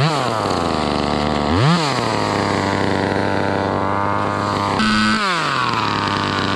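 Chainsaw engine revved in quick blips, then run at a steady, lower-pitched note as if pulled down in a cut, with a short rise and fall in pitch about five seconds in.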